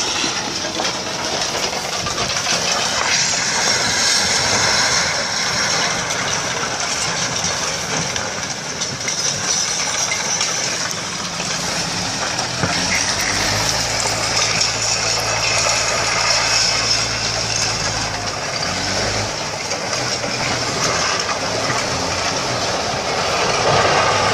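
Active landslide: soil, rubble and wrecked house debris sliding and breaking up, a continuous rumbling, rushing noise. About twelve seconds in, a steady low hum joins for several seconds.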